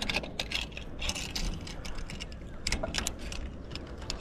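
Metal clips and pulley of a zip-line safety harness being handled, giving a series of irregular sharp clicks and rattles.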